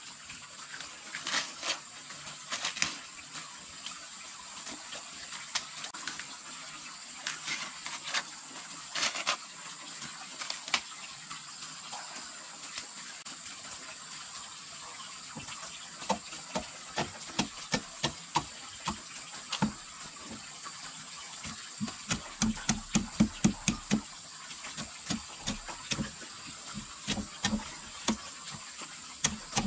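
Repeated short knocks, like a hand tool striking, scattered at first and then falling into a steady run of about two a second, becoming faster and heavier, about three a second, later on. Insects drone steadily at a high pitch throughout.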